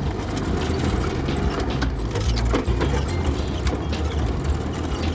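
Off-road 4x4's engine running steadily as it drives over an uneven dirt track, heard from inside the cab, with frequent small rattles and knocks from the body and loose fittings over the bumps.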